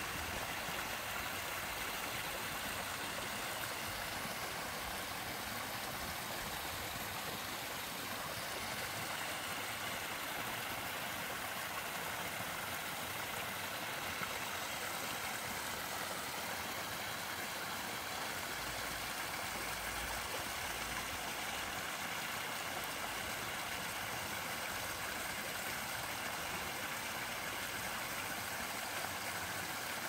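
Two small waterfalls in a mountain stream pouring over rocks into a pool: a steady splashing of falling water, mostly high in pitch with little low rumble.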